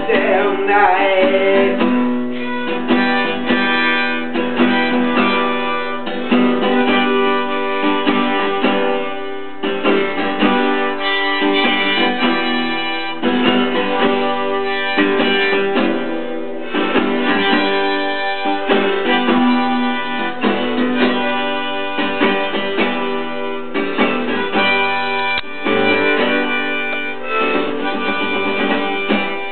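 Acoustic guitar strumming, with a harmonica playing held notes and a melody over it.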